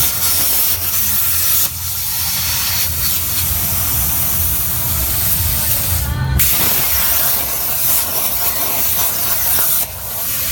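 CNC plasma cutter's torch hissing steadily as it cuts metal, over a low hum. The hiss cuts out briefly about six seconds in, and the level dips again near the end.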